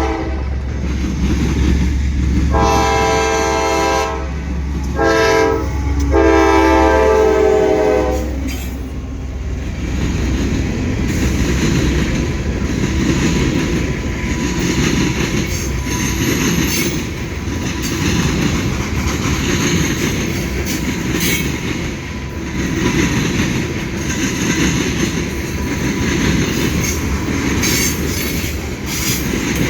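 Locomotive horn blowing a long blast, a short one and a long one, stopping about eight seconds in. Then the train rolls past with wheels clattering and squealing on the rails.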